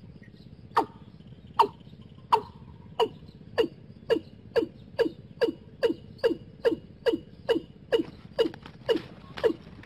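Watercock calling: a long series of short notes, each falling in pitch, that start nearly a second apart and speed up to about two a second.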